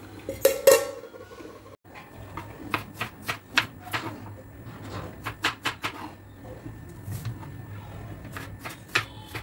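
Kitchen knife slicing red onions on a cutting board: a run of irregular sharp taps as the blade hits the board. Under a second in, a single ringing clank of a steel plate being handled.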